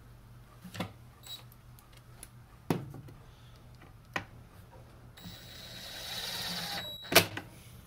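A cordless drill-driver runs for about two seconds with a steady high whine, driving the last bolt into the chainsaw's plastic housing. Scattered clicks and knocks of the tool and parts come before it, and a sharp knock follows just after the drill stops.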